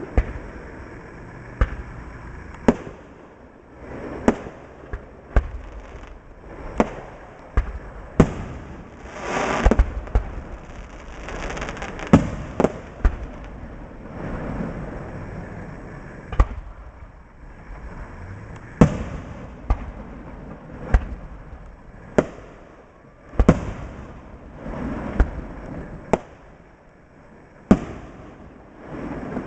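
Fireworks display: aerial shells bursting in sharp bangs every one to two seconds, with a longer stretch of crackling about a third of the way through.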